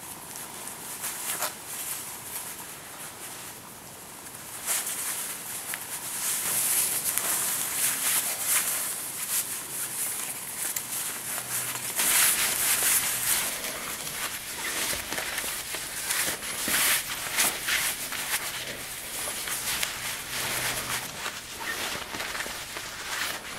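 Close-up rustling and swishing of a necktie's fabric being pulled and slid against a shirt collar as the tie is knotted, with many short scrapes and brushes. It is softer for the first few seconds and grows busier and louder about four and a half seconds in.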